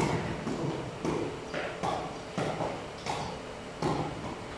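Hollow knocks of a takraw ball being kicked back and forth, about two a second at an uneven pace, each ringing briefly in a bare, echoing hall.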